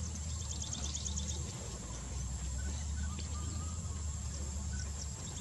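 Forest ambience: a steady high-pitched whine with runs of rapid high chirps near the start and again near the end, over a low steady hum.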